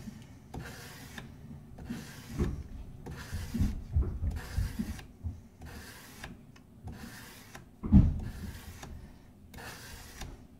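400-grit sandpaper on a hard rubber sanding block rubbed back and forth along a drawknife's steel bevel, a regular run of short hissing strokes with brief gaps between them. There is a dull knock about eight seconds in.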